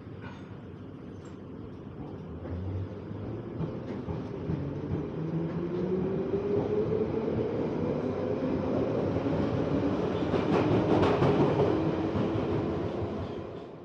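Underground train accelerating: its motor whine rises steadily in pitch over a growing rumble, with wheel clatter on the rails, then fades out near the end.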